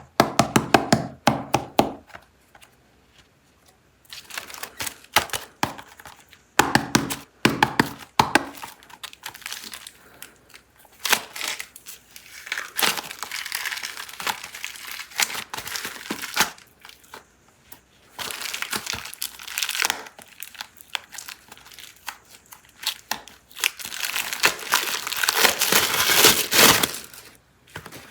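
Plastic packaging of super clay being handled and opened: crinkling and tearing in several long stretches, with runs of sharp clicks and cracks near the start and again a few seconds later.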